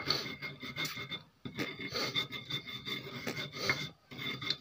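Coarse salt crystals being ground against a stone grinding dish (cobek): an irregular gritty scraping and crunching, with a short pause about a second and a half in.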